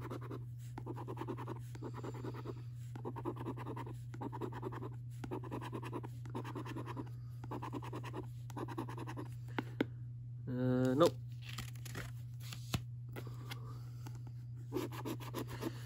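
A coin scraping the scratch-off coating from a National Lottery scratchcard in repeated short strokes. About two-thirds through the scratching stops for a few seconds, with a brief voiced sound and a few light clicks, then starts again near the end. A steady low hum runs underneath.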